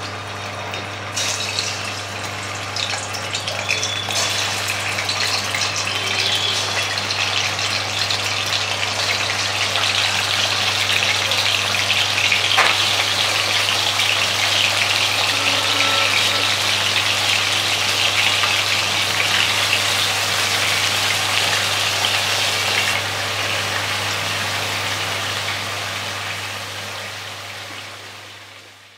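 Gram-flour-battered green chillies (mirchi bajji) deep-frying in hot oil: a steady, dense sizzle of bubbling oil that builds over the first ten seconds or so, then fades out near the end, over a steady low hum.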